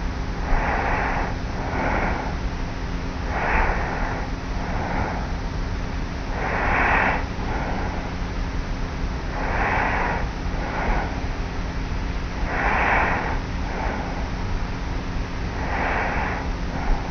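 Light, regular snoring of a sleeping young woman lying on her back, recorded close-up by a tape recorder on her pillow. There are six breaths about three seconds apart, each a longer, louder snore followed by a shorter, softer sound, over steady tape hiss and a faint hum.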